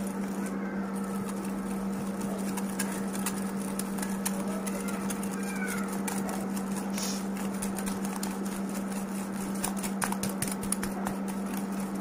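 Wire whisk beating egg and icing sugar in a glass bowl, with scattered light clicks of the wires against the glass, over a steady low hum.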